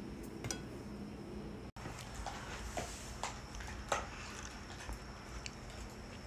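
A dog gnawing a ribeye steak bone: irregular sharp clicks and cracks of teeth on bone. A light clink of dishes about half a second in.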